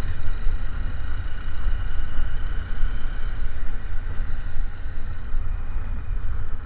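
A road vehicle in motion: engine and road noise under a heavy, uneven low rumble, with faint steady tones higher up.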